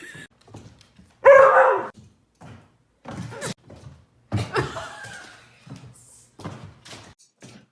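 A dog barking a few times, with knocks and thumps between the barks.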